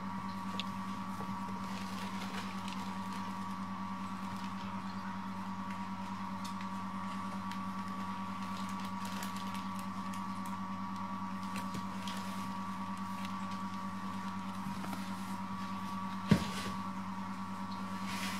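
Steady low electrical hum, with faint scattered taps and rustles of kittens playing on a hard floor around a fabric play tunnel, and one sharp knock about 16 seconds in.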